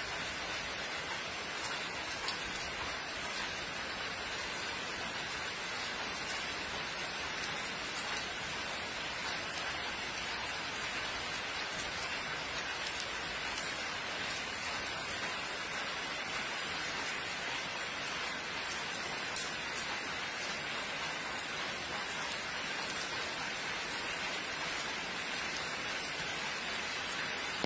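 Steady rain falling on wet paved ground: an even hiss with faint scattered drop ticks.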